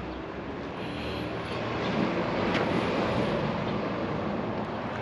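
A vehicle passing, its noise swelling to a peak a little after the middle and then fading.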